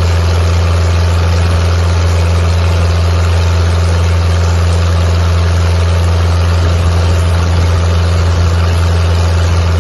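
Fishing boat's engine running steadily under way, a loud even drone with a rush of water and wind over it.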